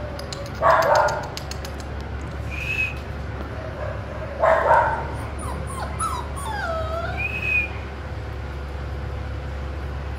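Dogo Argentino puppies, about six weeks old, playing, with two short loud yaps (one about a second in, one about halfway) and high squeaky whines that rise and fall between and after them.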